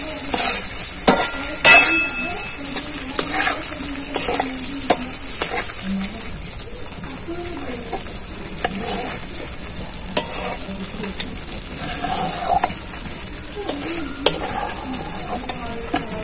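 A metal spatula stirring and scraping thick frying spice paste and eggs around a metal kadai, with irregular scrapes and taps of the spatula on the pan over a steady sizzle of the masala.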